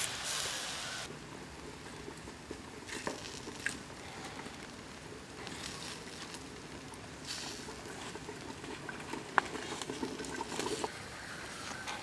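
Wood-ember cooking fire crackling with scattered small pops, and a faint sizzle of juices from a glazed duck roasting on a stick over the coals. There is a sharper pop about nine seconds in, followed by a quick run of crackles.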